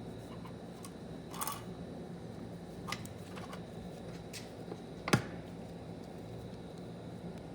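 Small metal parts of a TH400 automatic transmission being handled and fitted into their bore: a few light clicks and taps, with one sharper click about five seconds in, over a steady low hum.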